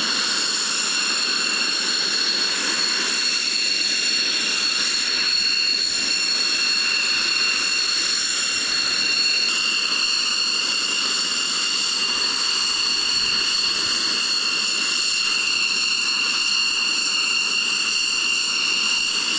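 Northrop Grumman X-47B's Pratt & Whitney F100 turbofan running as the drone taxis: a steady, loud jet whine, a hiss with several high whistling tones held level throughout.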